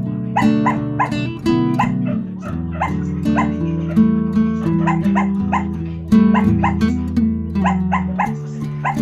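Background instrumental music: sustained chords under a steady run of short plucked notes.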